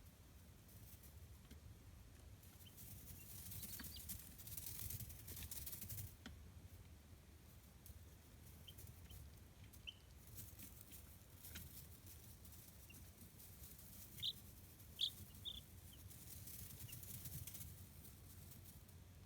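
Chicken chicks peeping, a few short high peeps, the clearest bunched together about three-quarters of the way through, over soft intermittent rustling.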